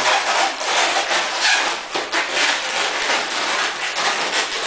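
Inflated latex modelling balloons rubbing against each other as they are twisted and fitted together by hand: a continuous, dense, irregular scraping.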